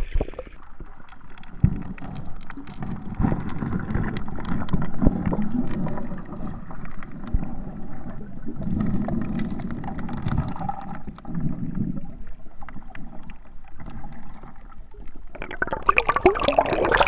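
Muffled underwater wash of shallow surf over a shingle seabed, picked up by a submerged action camera: slow surges of water with many small clicks of pebbles. Near the end a brighter splashing rush as the camera comes up to the broken surface.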